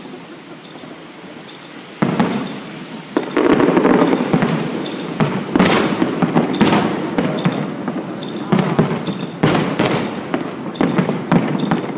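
Fireworks going off: a run of sharp bangs starting about two seconds in, each followed by a crackling tail, a few per couple of seconds.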